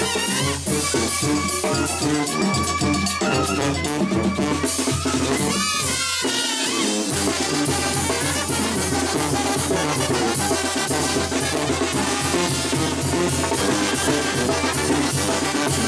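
Live brass band playing: sousaphone, trumpets and a drum kit keep a steady beat. The bass thins out briefly about six seconds in.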